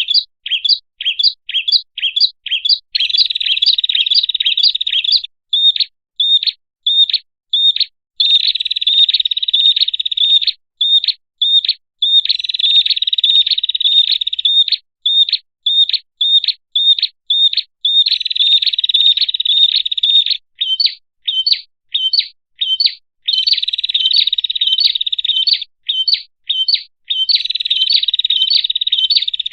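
A red-headed prenjak's call played as a bird-lure recording. Bouts of a dense, buzzy trill a few seconds long alternate with runs of separate sharp chirps, several a second.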